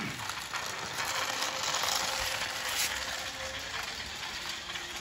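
Remote-control toy jeep's small electric motor and plastic gearbox whirring as it drives across a tiled floor, loudest about two seconds in.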